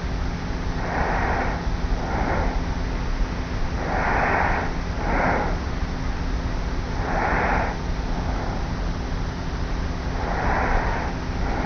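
Light, regular snoring breaths of a young woman asleep on her back, recorded close up from a tape recorder lying on the pillow. There is a soft breath about every three seconds over a steady tape hiss and hum.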